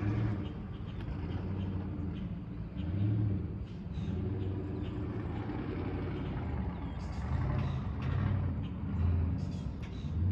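A car engine idling with a low rumble that swells and eases every second or so.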